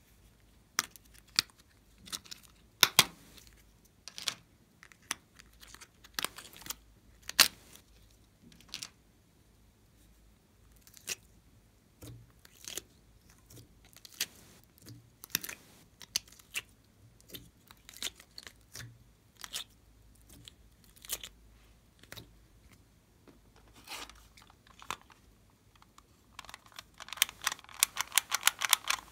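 Sharp plastic clicks and snaps, spaced a second or so apart, as the lids of a plastic pill organizer are flicked open. Near the end comes a fast run of clicks as a plastic toy camera is handled and clicked.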